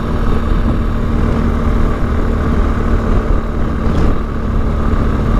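BMW GS adventure motorcycle cruising at a steady speed, its engine a steady drone under a heavy low wind rumble on the rider's microphone.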